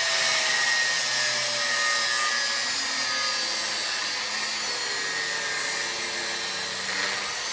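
Angle grinder with a cutoff wheel cutting through a steel canister billet: a steady, high grinding hiss with a faint motor whine that dips slightly in pitch.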